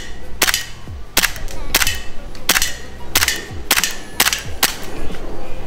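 Tokyo Marui FN Five-seveN gas blowback airsoft pistol firing single shots: eight sharp cracks, each with the slide cycling, about half a second to a second apart, stopping near the end.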